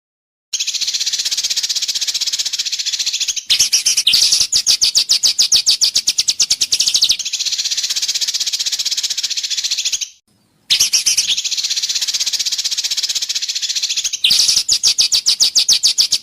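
Songbird song from a bird-mastering tutor recording: a high, buzzy chattering run of about three seconds followed by a rapid pulsed trill of roughly ten notes a second, the same phrase repeating. It breaks off briefly about ten seconds in and starts again.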